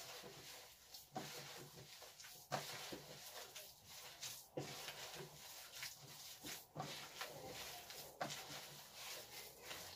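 Hands kneading a raw ground-beef köfte mixture in a plastic basin: faint, irregular soft sounds.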